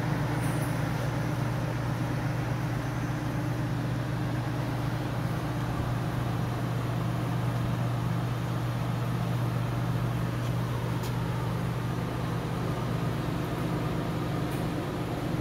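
Lincoln conveyor pizza oven running, its fans and motors giving a steady low hum.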